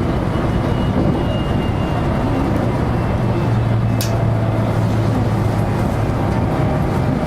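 Electric train running along the line, heard from inside the car: a steady rumble of wheels on rails with a low hum, and a single sharp click about four seconds in.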